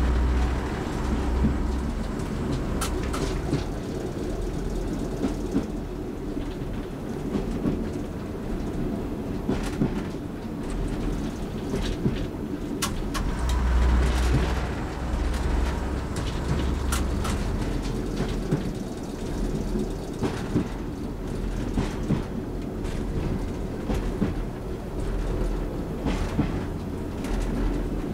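Class 101 diesel multiple unit under way, heard from on board: a steady diesel engine and wheel rumble that swells a couple of times, with occasional sharp clicks and knocks from the wheels on the track.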